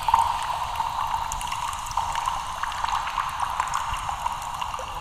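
Steady hissing noise peppered with many small crackles: a sound effect laid under an animated production-logo intro.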